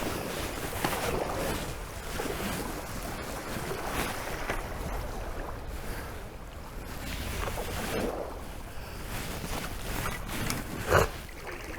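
Kayak paddle strokes splashing through fast-flowing river water, with wind buffeting the microphone. A sharper, louder splash or knock comes about 11 seconds in.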